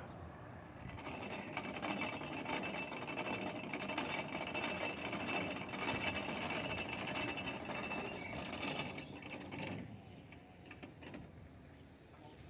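Canal lock paddle gear being wound with a windlass. The ratchet pawl clicks rapidly and steadily for about nine seconds, then stops.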